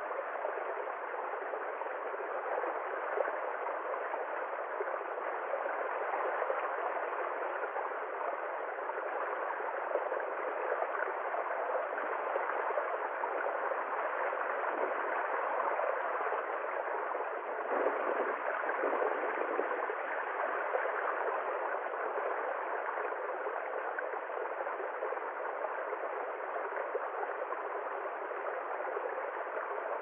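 A small stream trickling and gurgling over stones, a steady, even babble of running water.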